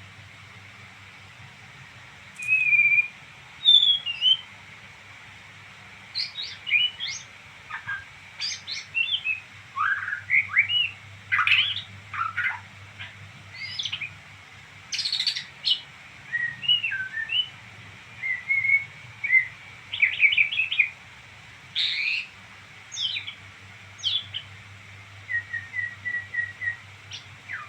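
A songbird twittering: a varied run of short whistled notes, quick rising and falling chirps and rapid trills, in phrases with brief pauses between them. A faint steady low hum sits underneath.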